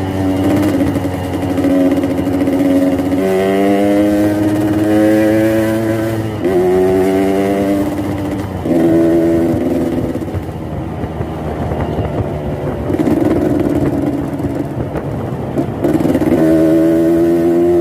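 Yamaha RX-King's two-stroke single-cylinder engine, tuned for the deep, raspy 'ngorok' (snoring) exhaust note, running and revving. Its pitch holds, then rises or drops in steps several times, with a rougher, less even stretch in the middle.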